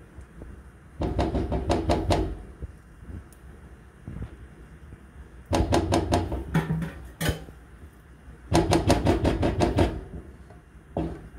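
Rubber spatula knocking and scraping thick cream out of a measuring cup into a pot: three bursts of quick rapping taps with pauses between.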